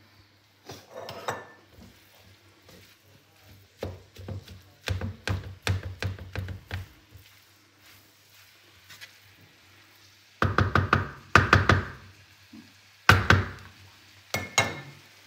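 Wooden spoon stirring minced meat and onions in a frying pan, scraping and knocking against the pan in irregular clusters, the sharpest knocks coming about two-thirds of the way through.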